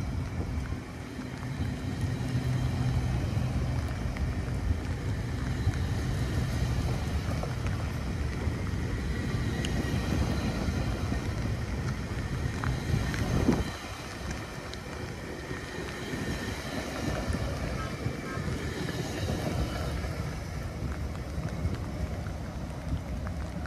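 A train running past: a steady rumble of wheels on the rails with wind buffeting the microphone. A sharp click comes a little over halfway through, after which the rumble is somewhat quieter.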